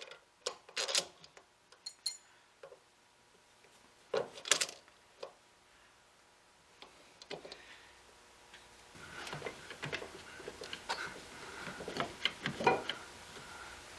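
Metal washers and bolt of a stabilizer-bar end link clinking and clicking as the link is put together by hand, with one sharp, ringing clink about four and a half seconds in. From about nine seconds there is a quicker run of small clicks.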